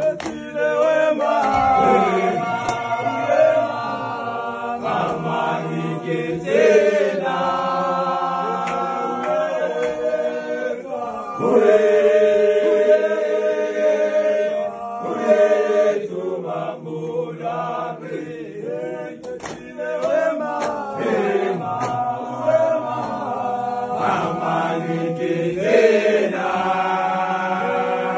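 A group of men singing a gwijo, a South African football team chant, together in phrases with full harmony.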